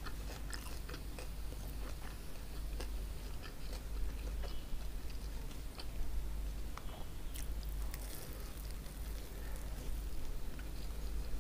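Chewing of crispy chicken hawawshi (Egyptian baked bread stuffed with spiced chicken) close to the microphone, with scattered small crunches and clicks over a steady low hum.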